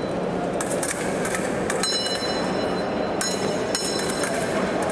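Steel épée blades clicking and clashing, several strikes leaving short metallic rings, mixed with fencers' shoes stepping and stamping on the piste.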